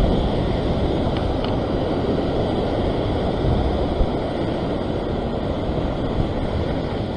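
Ocean waves breaking and washing over a rock ledge, a steady rushing with wind buffeting the microphone.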